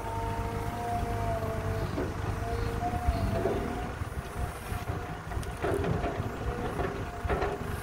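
Caterpillar 312B excavator's diesel engine running under load with a wavering whine over it as the machine swings and works its bucket. A few short knocks come in the second half.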